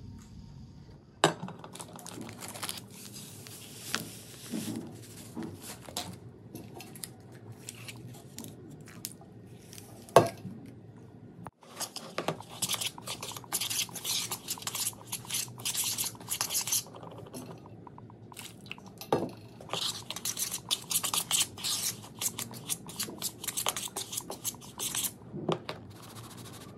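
A hand and a spoon mixing dry flaked corn meal for cuscuz in a plastic bowl: runs of quick scratchy, rustling strokes, with a single sharp knock against the bowl about ten seconds in.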